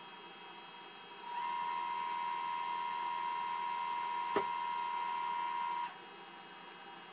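Electrosurgical (electrocautery) unit's activation tone: a steady beep that starts about a second in, holds for about four and a half seconds and cuts off sharply, with a hiss under it and a single sharp click partway through.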